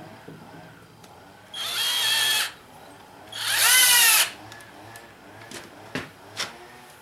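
Cordless drill driving a wood screw into a wooden anvil stump in two bursts of about a second each, the motor's pitch rising as it spins up; the second burst is louder. Two sharp knocks follow near the end.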